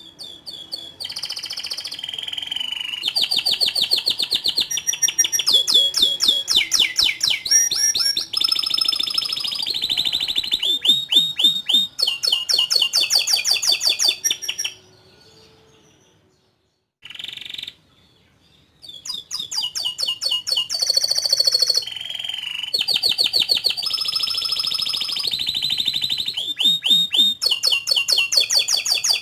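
Domestic canary singing long, unbroken song phrases of fast repeated chirps and rolling trills, in two long bouts with a short pause in the middle.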